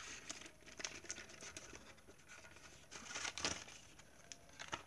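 Plastic blister packaging of a fidget spinner crinkling and clicking faintly as it is pried open, with a louder rustle about three seconds in.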